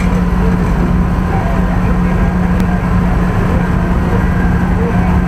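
Engine running at a steady speed, giving a constant low drone.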